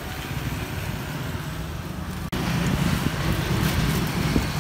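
Steady low rumble of road traffic and engines. A split-second dropout comes a little over two seconds in, and the rumble is louder after it.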